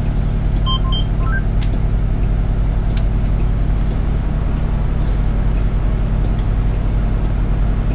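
Cummins ISX12 diesel engine of a commuter coach idling steadily. A few short electronic beeps sound about a second in, and two sharp clicks, like dash switches, follow shortly after.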